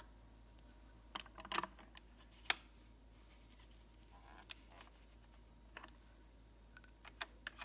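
Scattered light clicks and taps of hard plastic, a few at a time, the sharpest about two and a half seconds in, against a quiet background.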